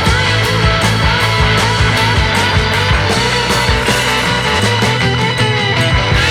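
Rock-style background music with guitar, a steady drum beat and a bass line.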